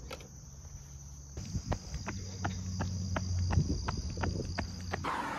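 Running footsteps on pavement, about three strides a second, starting about a second and a half in, over a steady high chirring of insects. A short click of the door latch near the start.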